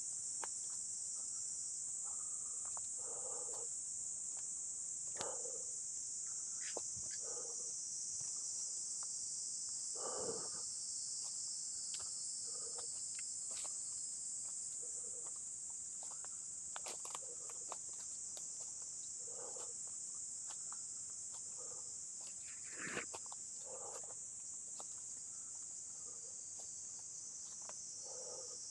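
A steady high-pitched insect chorus, with the soft thud of footsteps on dry leaf litter every second or two and an occasional snap of twigs.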